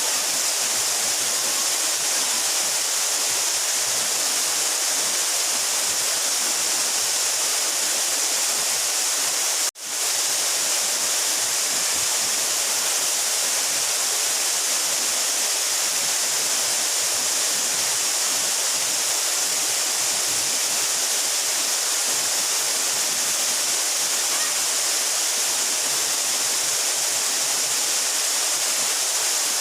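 A 12-metre mountain waterfall pouring: a steady, even rush of falling water with a strong hiss. The sound cuts out for a split second about ten seconds in, then carries on unchanged.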